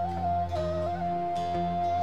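Gambus band playing an instrumental passage: a held lead melody line with a short ornamented dip and turn, over a steady bass, with one percussion hit near the end.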